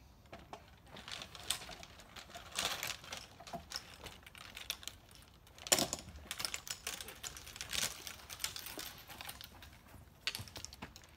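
Golf clubs rattling and clinking in a golf bag worn on the back as the wearer climbs and swings on a climbing frame. Irregular clacks and knocks throughout, the loudest about six seconds in.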